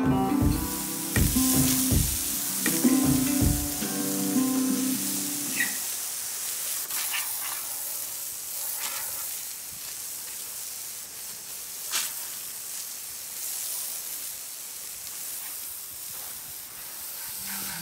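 Water from a hose sprayed across a freshly sawn madrone slab: a steady hiss of spray hitting the wet wood. Guitar music plays over the first four seconds.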